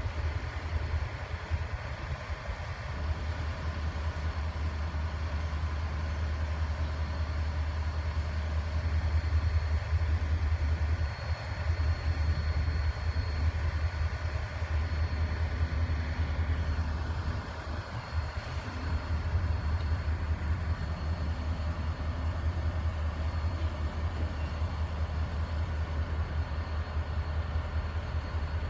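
Low, steady rumble of a string of empty intermodal flatcars in a rail yard. A faint, thin high whine runs for a few seconds midway.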